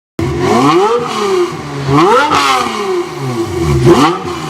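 Supercar engine revved in three throttle blips, its pitch climbing and falling back each time, with the middle blip the highest. It cuts in suddenly out of silence.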